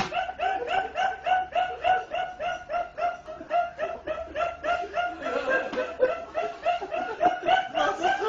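A man laughing uncontrollably in a long, rapid run of high-pitched 'ha' pulses, about four a second, with a sharp crack right at the start.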